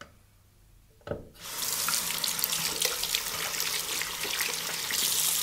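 Single-lever bathroom mixer tap turned on: a short knock about a second in, then water running steadily from the faucet into the sink basin.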